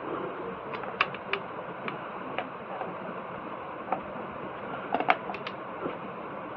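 Small sharp clicks and light taps of tools and metal fan parts being handled, scattered irregularly with a quick cluster about five seconds in, over a steady background hiss.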